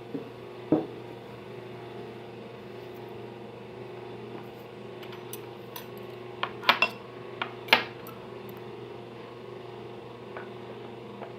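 Dishes and cutlery clinking a few times: one sharp clink about a second in and a quick cluster of clinks around seven to eight seconds in, over a steady background hum.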